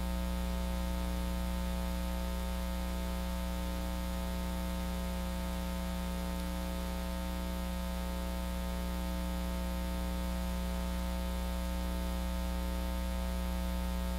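Steady electrical mains hum with a buzzing edge, loudest in the deep bass, over a light hiss.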